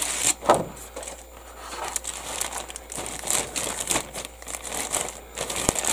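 Thin clear plastic bag crinkling in irregular crackles as it is handled and pulled off a plastic model-kit sprue, loudest about half a second in.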